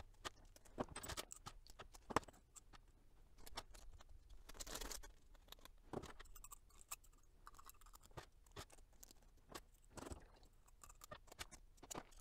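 Faint scattered clicks and taps as small metal tubes, pins and coil springs are handled and set down on a tabletop and in a tray, with a short rustle about five seconds in.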